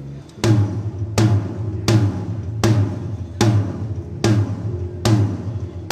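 A drum struck in an even, steady beat through an amplified sound system, about eight hits, each a deep boom with a ring that falls in pitch. It is being tested after a one-two-three count-in.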